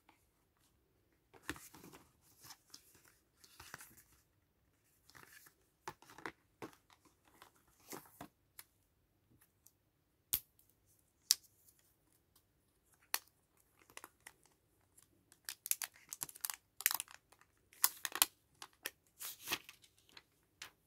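Smartphone packaging handled by hand: irregular rustling and crinkling of plastic film and cardboard, with scattered sharp clicks and taps, busier in the last few seconds.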